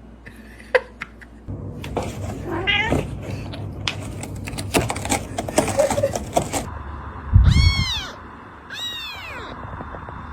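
A cat meowing a few short times, with rustling and clicks in the middle and one loud low thump a little past seven seconds in.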